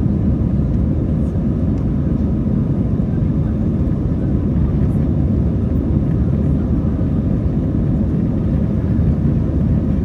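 Airbus A321 cabin noise in flight: the steady low rumble of the engines and the airflow over the fuselage, even and unchanging.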